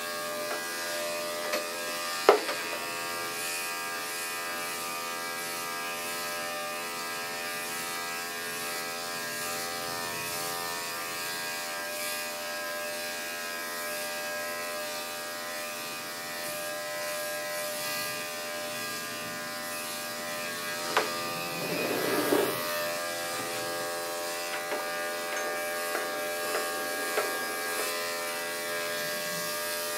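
Electric dog grooming clippers running with a steady buzz as they clip the coat. There is a sharp click about two seconds in and a brief louder patch about two-thirds of the way through.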